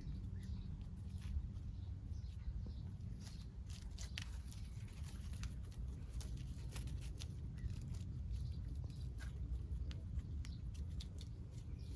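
Scattered scratching and rustling clicks, as of a kitten's claws gripping and scrabbling on tree bark, over a steady low rumble.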